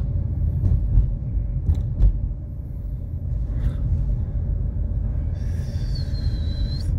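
Steady low rumble of a car driving, heard from inside the cabin, with a few faint clicks. A brief high, wavering whistle-like tone sounds near the end.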